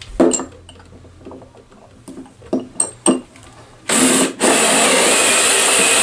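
Cordless drill boring into a wooden 2x4, starting about four seconds in and running steadily at full speed after a brief hitch. Before it come a few light knocks as the drill is set in place.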